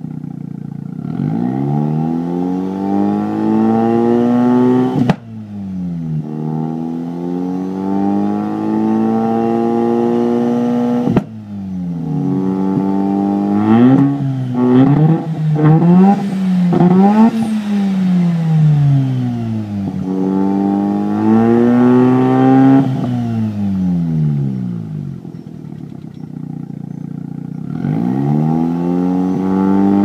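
Mazda RX-7 FC3S Turbo II's turbocharged twin-rotor rotary engine revved repeatedly while parked, through a Racing Beat REV TII exhaust. The revs climb, hold and fall again several times, twice cutting off suddenly with a sharp crack. Near the middle comes a run of quick throttle blips.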